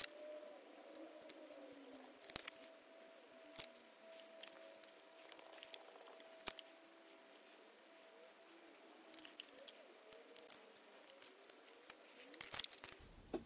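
Scattered light clicks and taps of fingers handling a car heater-blower resistor block, its coil springs and the wire leads of a new thermal fuse being fitted to it.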